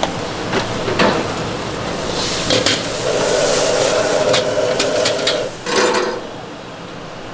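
Stir-frying in a wok: a metal spatula knocks and scrapes against the pan over the sizzle of frying food. It stops about six seconds in.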